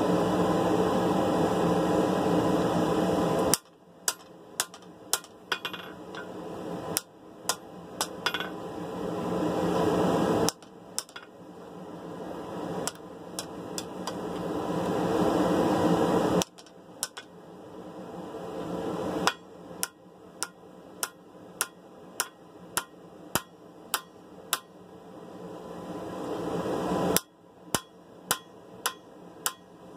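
Runs of hand-hammer blows on a sword blade at the anvil, about two strikes a second, straightening the blade. Between the runs comes a steady rushing noise that stops abruptly each time the hammering starts again.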